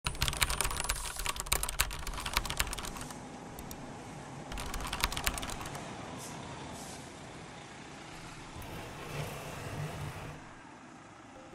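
Computer keyboard typing: quick key clicks for about three seconds, then a second short run of typing about four and a half seconds in, over a low steady hum.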